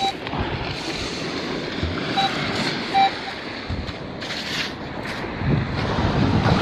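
Wind buffeting the microphone over beach surf. A metal detector gives three short beeps in the first three seconds, and a sand scoop rasps as it is dug into and shaken through beach sand.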